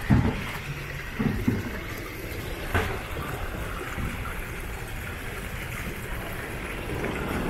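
Water splashing and trickling from a row of small fountain jets into a shallow stone channel, steady throughout, with a few dull thumps in the first three seconds.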